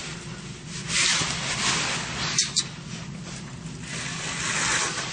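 A window being opened by hand: rubbing and scraping as the frame moves, with two sharp clicks close together about two and a half seconds in.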